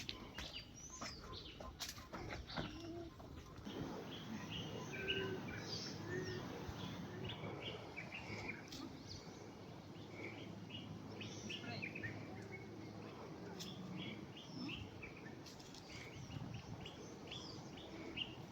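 Small birds chirping in many short, quick calls, over a steady rustle of people walking through vegetation, with a few sharp snaps and knocks in the first few seconds.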